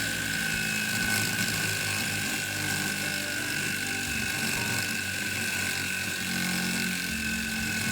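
Rebuilt capacitor-start induction motor of a dust collector running, a steady mechanical noise with a constant high tone.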